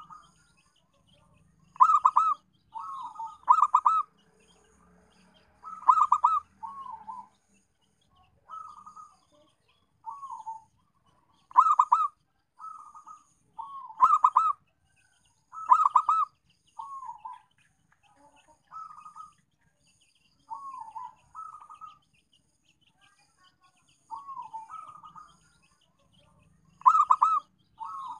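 Zebra dove (perkutut) cooing: repeated phrases of soft falling coos and louder, rapid stuttering coos, with pauses of a second or two between them.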